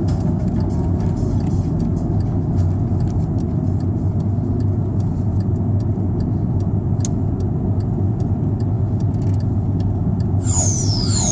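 Steady low rumble of a Volkswagen Scirocco's 2.0 TDI four-cylinder diesel and road noise while driving. Near the end, a few falling whistling tones come in.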